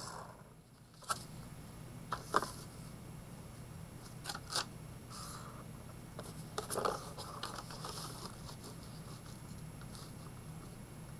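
A marker drawing short straight lines along a plastic ruler on paper: several brief scratchy strokes, with a few light clicks and taps as the ruler is set down and moved.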